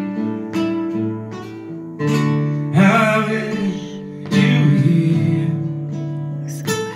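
Acoustic guitar being strummed, one chord after another, each ringing on between strokes.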